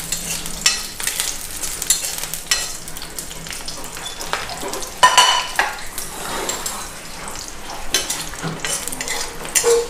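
Chillies sizzling as they fry in oil in a hot kadai, with a metal spatula stirring and scraping irregularly against the pan. One louder metallic clink rings out about five seconds in.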